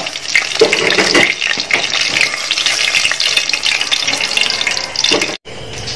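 Marinated chicken pieces sizzling and crackling in hot oil as they deep-fry, stirred and scooped with a slotted metal strainer. The sizzle cuts off abruptly about five seconds in.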